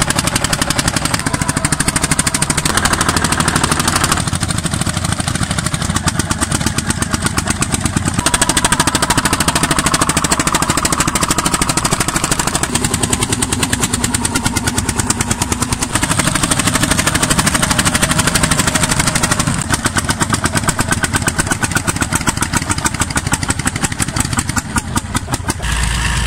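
Vintage tractor engines running while plowing, mainly Landini single-cylinder hot-bulb (testa calda) engines, with a rapid, even pulse of exhaust beats. The tone shifts abruptly several times as one tractor gives way to another.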